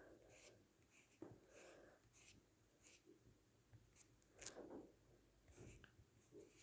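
Near silence with faint scattered rustles and a few soft taps, small handling noises close to the microphone.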